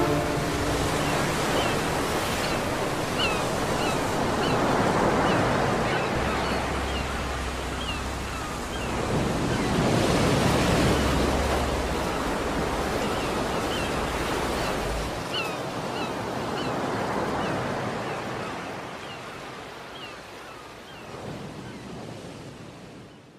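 Sea waves surging and washing in slow swells every few seconds, with short high chirps above them. The sound fades out near the end.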